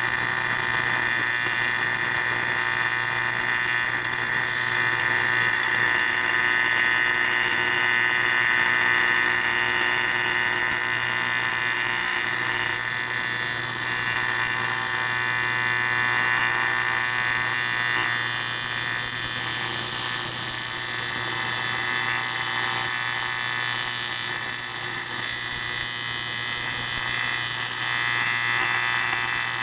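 AC TIG welding arc buzzing steadily as it melts filler into a hole in an aluminium motorcycle cylinder head.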